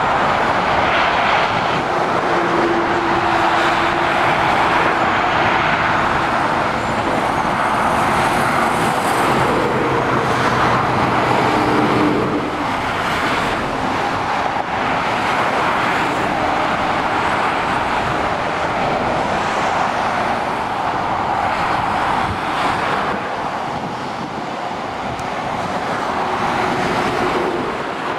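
Steady motorway traffic: tyre noise of lorries and cars passing below, with a steady hum from a passing vehicle now and then.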